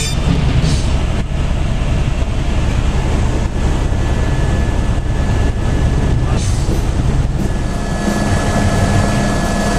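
Helicopter cabin noise in flight: the steady rumble of the rotor and turbine heard from inside the cabin, with a faint steady tone coming in near the end.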